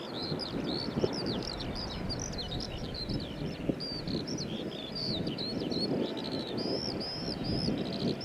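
Songbirds chirping and twittering continuously in quick, high, gliding notes, over a steady low rumbling noise.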